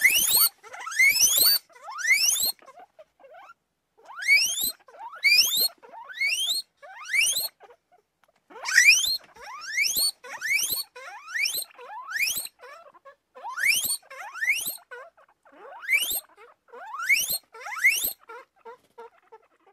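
Guinea pig squealing (wheeking) over and over: a long run of shrill calls, each sweeping upward in pitch, coming in groups of three or four with short pauses between, fading near the end.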